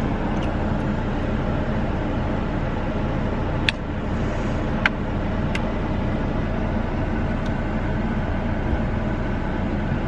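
Steady hum of a car's engine and road noise heard from inside the cabin, with a few light clicks near the middle.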